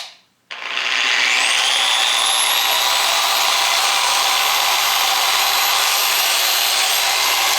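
A click, then a Rupes LHR75E dual-action polisher starts about half a second in. Its whine rises over about a second and then runs at a steady speed.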